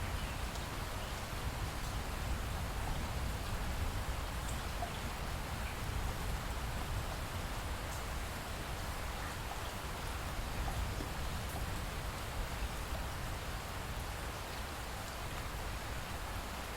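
Steady rain falling, with scattered faint drop ticks over an even hiss and a low rumble underneath.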